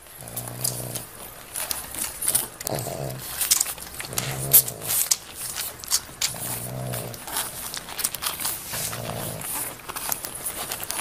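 A dog's low grunting, about a second long and coming roughly every two seconds, over rapid wet clicking and smacking from pug puppies suckling at their mother's teats.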